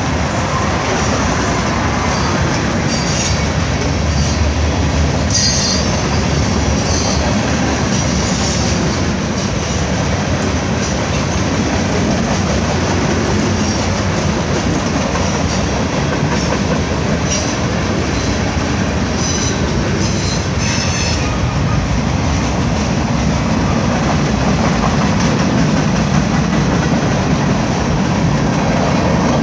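A freight train's cars rolling past close by: a steady, loud rumble and rattle of steel wheels on the rails. Brief high-pitched wheel squeals break through several times.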